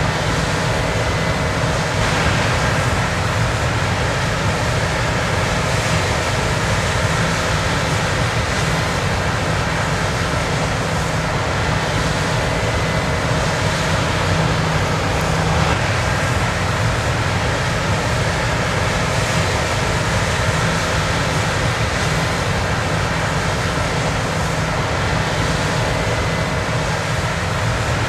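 Combine harvester running steadily at work: an even, unchanging machine noise, heaviest in the low end.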